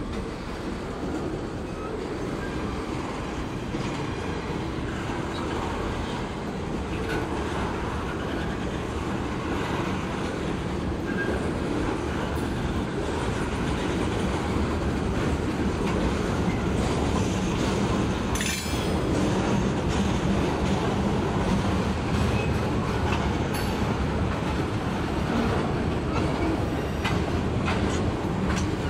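Freight cars (lumber-laden centerbeam flatcars and tank cars) rolling past, their steel wheels running on the rails in a steady rumble that grows louder, with a brief sharp sound about two-thirds of the way through.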